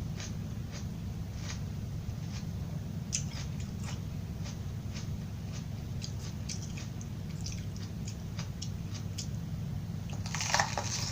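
Chewing crunchy raw vegetables: crisp crunches repeating at about two a second, with a louder, longer crunch near the end. A steady low hum runs underneath.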